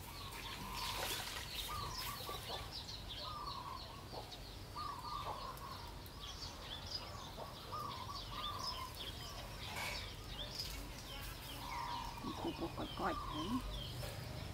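Birds chirping continuously, with one short call repeated about once a second, over the faint scratching of a plastic comb raking through hair.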